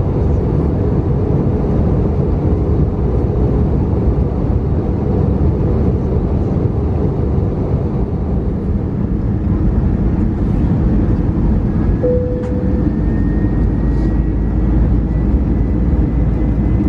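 Airbus A320-214 cabin noise during descent: the steady drone of the CFM56-5B turbofan engines and airflow over the fuselage, heard from a window seat beside the engine. A short clear tone sounds about twelve seconds in, and a faint high whine rises slowly through the second half.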